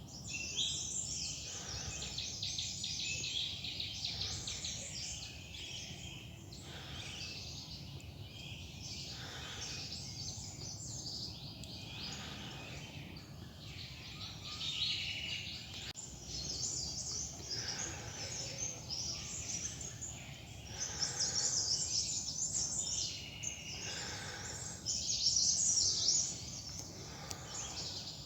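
Forest birds chirping and trilling, several overlapping calls that come in louder bursts near the end, over a steady low rumble.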